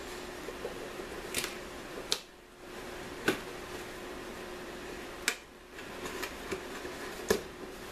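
Cardboard Loot Crate box being handled and refolded inside out: a handful of sharp, separate clicks and crackles of the cardboard, spread a second or two apart.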